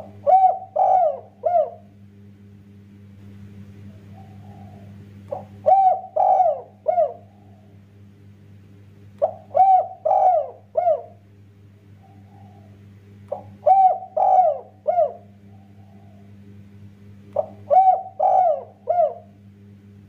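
Spotted dove (tekukur) cooing: five repeated phrases about every four seconds, each a quick lead-in followed by three loud coos, with a soft low coo between phrases.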